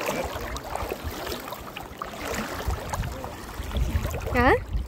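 Fast river current rushing and splashing around waist-deep waders, with low rumbling buffets in the second half. Near the end, one short rising shout from a person.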